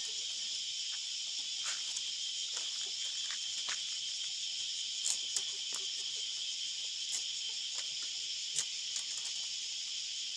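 A steady high-pitched insect chorus, with scattered sharp clicks and light rattles of split bamboo strips being threaded into a woven basket.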